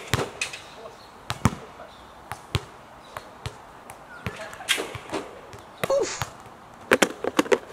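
Basketballs bouncing on a hard outdoor court: a string of separate sharp bounces, then a quick cluster of bounces near the end.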